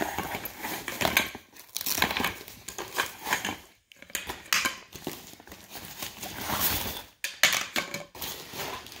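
Fabric carry case and its cardboard liner rustling and crinkling as backdrop-stand poles are slid out by hand, with a few light knocks from the poles. It comes in irregular spurts with short pauses.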